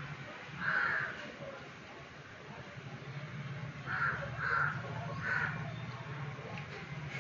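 A bird cawing in four short, harsh calls, one about a second in and three more between four and five and a half seconds in, over a faint low hum.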